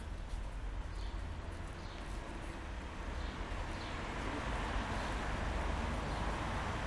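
Street ambience: a steady low rumble with a hiss that grows slightly louder about halfway through.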